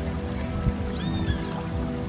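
Soft ambient music with long held notes. About halfway through, a bird chirps two quick arching notes.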